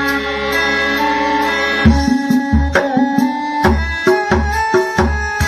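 Music playing loudly through a miniature sound system with a 12-inch subwoofer. Held notes open it, and about two seconds in a heavy bass beat with sharp drum hits comes in.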